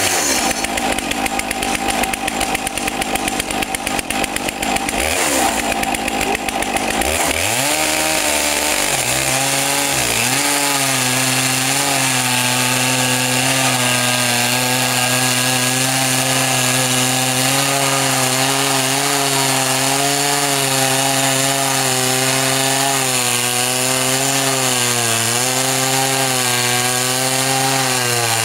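Stihl chainsaw on a Logosol chainsaw mill ripping a maple log lengthwise. Its pitch shifts and climbs over the first several seconds as it enters the cut, then it runs at a steady, slightly wavering pitch under load.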